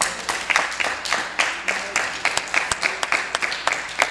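Hand clapping close by at a steady pace of about four to five claps a second, with the wider applause of the gathering behind it.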